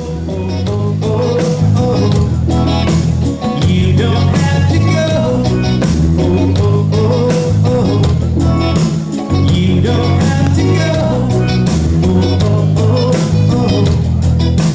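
A band playing an instrumental passage in a reggae/rock style: a heavy repeating bass line under steady drums and a lead melody line.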